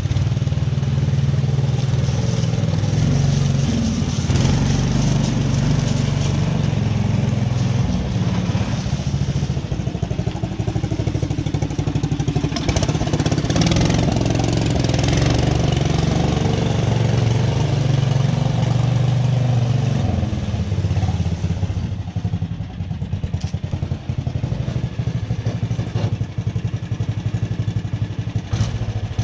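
COOT utility vehicle's engine running as the machine is driven, its carburetor freshly rebuilt. The engine note is steady, easing off and becoming more uneven about two-thirds of the way through.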